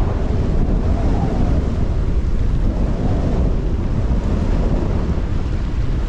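Strong wind buffeting the microphone: a loud, rough rumble with a hiss above it, rising and falling slightly with the gusts.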